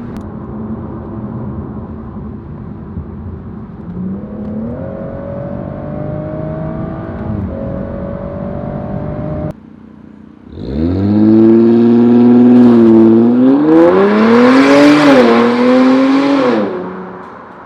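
Exhaust of a turbocharged six-cylinder sports coupe while driving: first a steady, moderate engine note that shifts pitch a little, then after a sudden break a much louder hard acceleration whose pitch climbs in steps, with a rushing hiss at its peak, before it drops away near the end.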